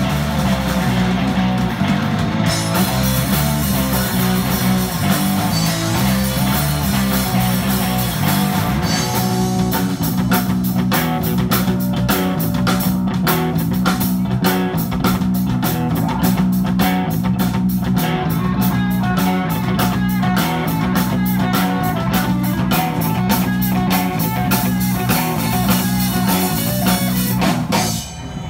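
Live rock band playing, with electric guitar over a drum kit. About ten seconds in, a fast, steady beat on the drums comes in. Near the end the band falls quieter.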